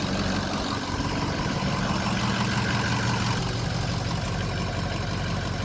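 Ford 6.0 L Power Stroke V8 turbo-diesel idling steadily, running again after a crank-no-start fault on its injection pressure regulator (IPR) oil system.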